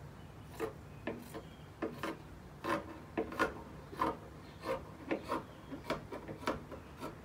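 Scissors cutting through t-shirt fabric: a series of short snips, about two a second.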